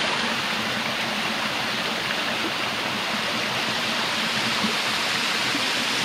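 Small waterfall cascading down stepped rock ledges into a pool: a steady rushing splash of falling water.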